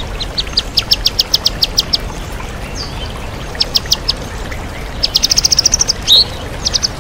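White-rumped shama (murai batu) singing sharp, high repeated notes: a run of about four a second, a few more after a pause, then a faster rattling run near the end. A waterfall rushes steadily underneath.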